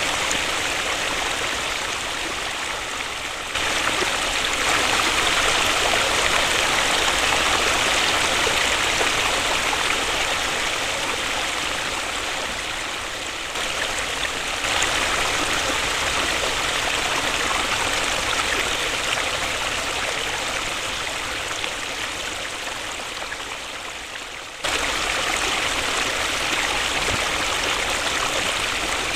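Waterfall: a steady hiss of rushing, splashing water. It fades slowly, then abruptly jumps back up to full strength three times.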